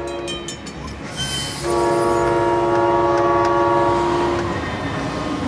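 Train horn sounding one steady chord for about three seconds, starting a little under two seconds in and then fading. A short hiss comes just before it.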